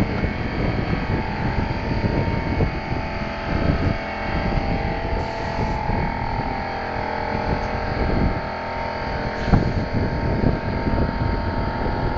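A machine running steadily with a constant hum of several fixed pitches, over irregular low noise.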